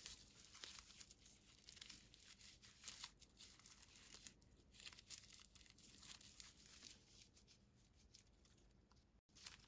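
Faint, irregular crinkling and rustling of raffia yarn as a crochet hook pulls it through stitches while double crochets are worked.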